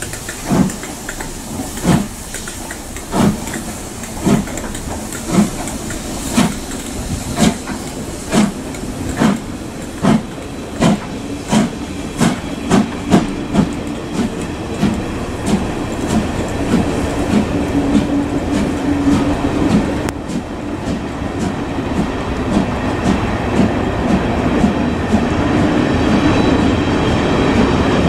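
LMS Black Five 45212, a two-cylinder steam locomotive, working away with sharp, regular exhaust beats that quicken from about one a second to more than two a second as it accelerates, then fade under the steady rolling noise of its coaches. In the later part the train runs past close by, a steady, growing rumble of wheels on rail with clickety-clack.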